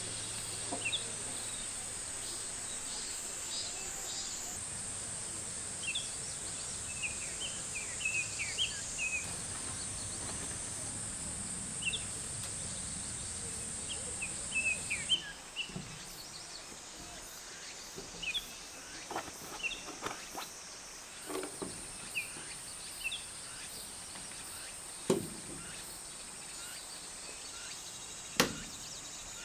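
Summer forest ambience: cicadas buzzing in a steady high drone, with short bird chirps scattered throughout. A few sharp knocks, the loudest about 25 and 28 seconds in, break in during the second half.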